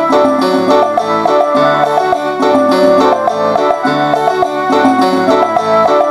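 Music with quick melody notes over a repeating bass line, playing through a bare cone woofer and a small dome tweeter as a one-way speaker test, with the woofer held in the hand and not mounted in a cabinet. The deepest bass is thin.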